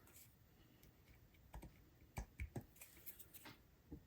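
Faint, irregular small clicks and taps, about eight of them starting about a second and a half in: tools and small parts handled on an HO-scale model locomotive while grease is worked into its worm gear.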